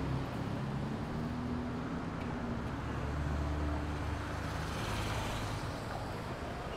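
Town street traffic ambience: a steady low engine hum from vehicles under a wash of road noise, with a little more hiss near the end.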